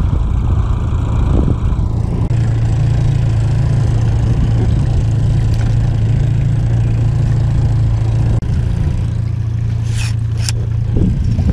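Boat motor running steadily at trolling speed, a constant low hum, with two sharp clicks near the end.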